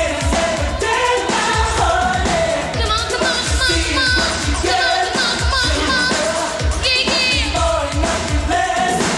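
Dance-pop song with a woman singing over synthesizer backing and a steady kick-drum beat about twice a second.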